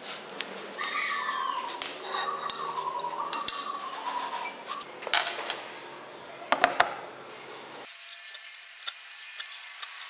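Steel drill swarf being brushed off a plate in a drill-press vise, over a faint whine that slowly falls in pitch. Then a few sharp metal clinks and small taps as steel parts are handled on the bench.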